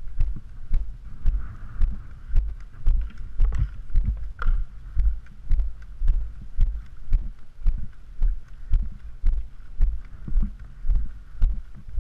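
A player's walking footsteps jolting a body-worn camera: dull low thumps, about two a second, evenly paced.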